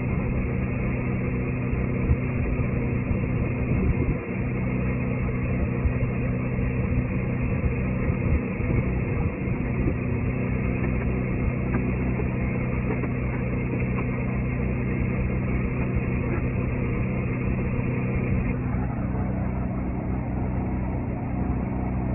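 A machine running steadily with a low, even hum; the higher part of the sound drops a little near the end.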